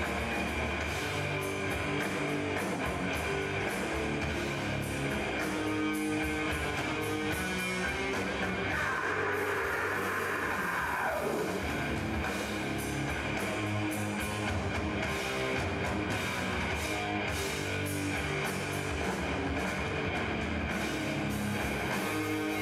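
Death metal band playing live, without vocals: heavily distorted electric guitars, bass and drum kit, recorded through a camcorder microphone. About nine seconds in, a high guitar note slides down over a couple of seconds.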